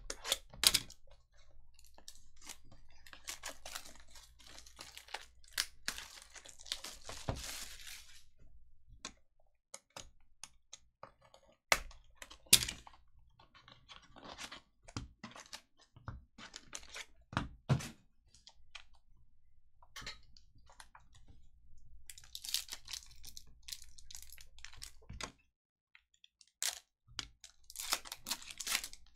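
Trading cards and their plastic packaging being handled: scattered clicks and taps, with spells of crinkling, tearing rustle, the longest about three to eight seconds in and again near the end.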